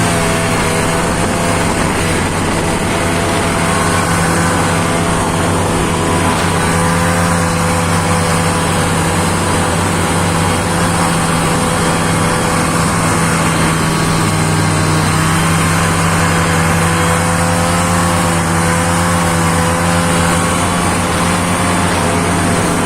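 Snowmobile engine running at a steady, even speed while riding, with no marked revving.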